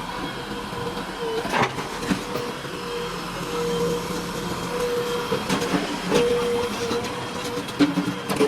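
JCB 3DX Plus backhoe loader's diesel engine running under hydraulic load with a steady whine, punctuated by a few sharp metallic knocks.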